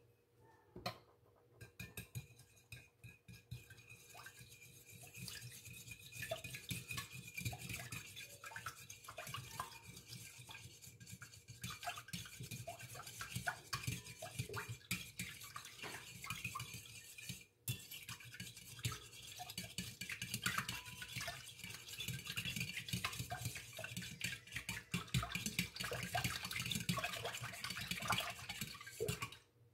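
A fork stirring quickly in a ceramic mixing bowl: a steady run of rapid clinks and scrapes against the bowl. It pauses briefly a little past halfway, then carries on.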